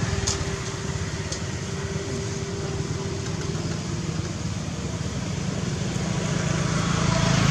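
Road traffic, mainly small motorbike engines running steadily, growing louder near the end.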